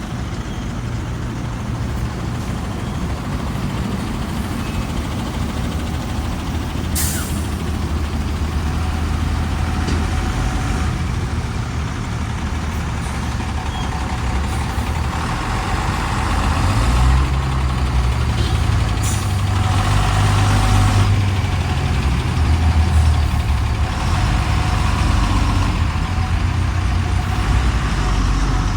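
Heavy diesel engine running steadily, growing louder a little past the middle, with two brief sharp hisses.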